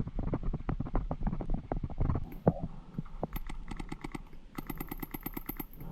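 Rapid strings of paintball marker fire, about ten shots a second, starting a little past halfway, over irregular low thumps and rustling from the player moving with the camera.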